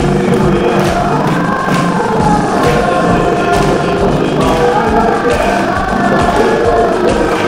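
Dance music playing loud, with a steady beat and singing over it.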